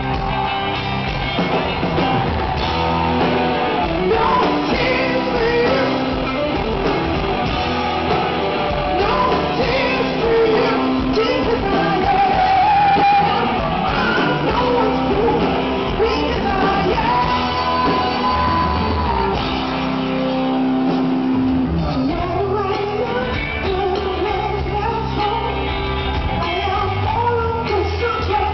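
A live rock band with a female lead singer, playing loud through a large festival PA and heard from out in the crowd: sung lines over guitars, bass and drums.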